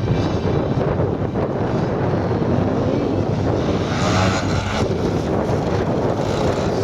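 Wind buffeting the microphone over the steady drone of a large aerobatic model plane's DA-170 twin-cylinder petrol engine, with a brief rise in hiss and a few short pitch swoops about four seconds in.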